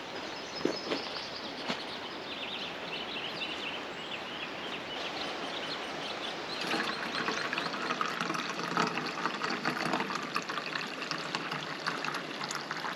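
Creek water running steadily, growing louder about seven seconds in, with a few short bird chirps about two to five seconds in.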